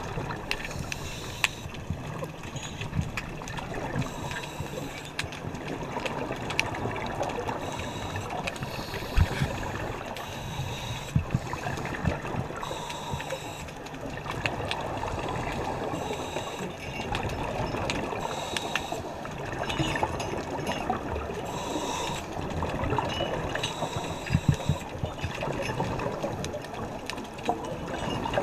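Underwater sound of a scuba diver breathing through a regulator: exhaled bubbles gurgle out in bursts every few seconds, with scattered clicks between them.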